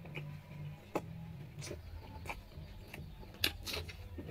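Eating by hand: fingers mixing rice on a plate, then soft clicks and wet mouth smacks as a handful is eaten, the loudest few about three and a half seconds in.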